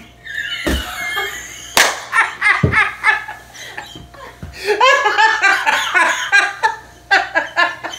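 A man and a woman laughing hard together in fits and bursts, with a single sharp knock about two seconds in.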